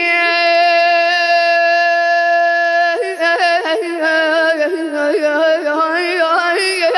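A solo voice singing an Arabic religious elegy in the Husseini lament style. It holds one long steady note for about three seconds, then breaks into rapid melismatic ornaments that waver up and down.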